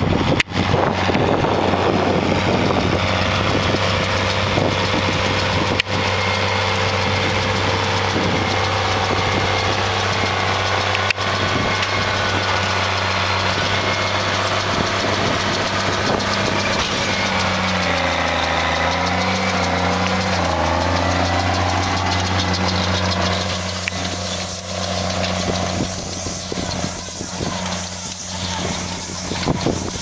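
Case MX135 tractor's six-cylinder diesel engine running steadily while it pulls a round baler through the field. Past the middle the engine note sags in pitch and recovers, and near the end it grows quieter as the tractor pulls away.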